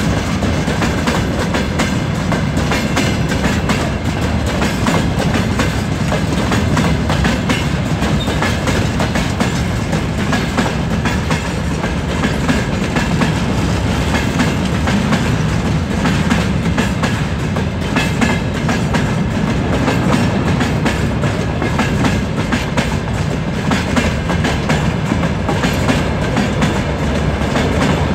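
An empty freight train of open-top wagons rolling past, its wheels clattering steadily over the rail joints.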